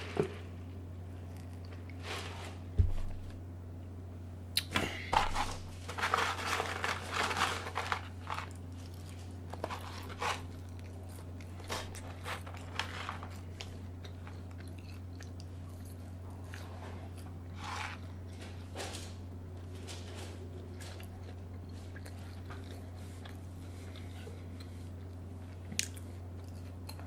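Close-miked chewing and biting of crunchy food: a busy run of crunching bites early on, then scattered, sparser chews. A steady low hum sits underneath.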